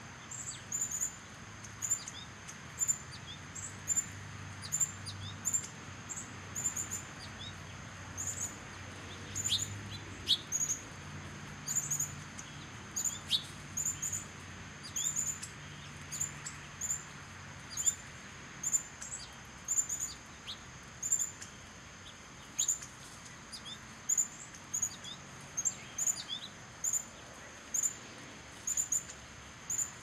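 Birds giving short, high-pitched chip notes, repeating about once or twice a second, with now and then a sharper note that drops in pitch. A faint low hum runs underneath.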